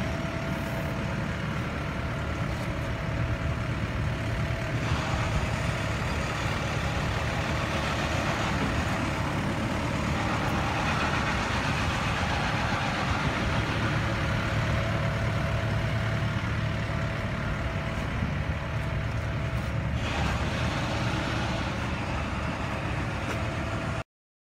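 Steady mechanical rumble with a faint constant hum, like a vehicle engine running nearby. It cuts off abruptly near the end.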